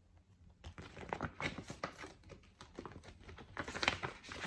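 Plastic packaging and small reusable goodie bags crinkling and rustling as they are handled, a run of small crackles starting about a second in.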